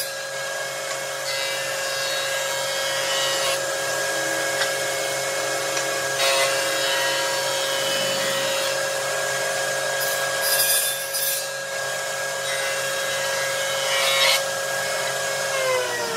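Table saw running with a steady hum, ripping wooden strips with a rasping noise several times. Near the end the motor is switched off and its pitch falls as the blade winds down.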